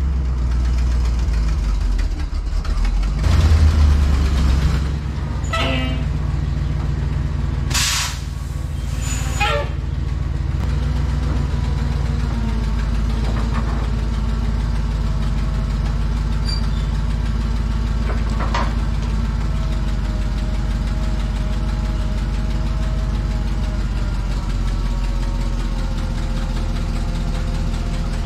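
Flatbed crane truck's engine running steadily while the crane is set up. It rumbles louder about three to five seconds in, and two short noisy bursts come around eight and nine and a half seconds in.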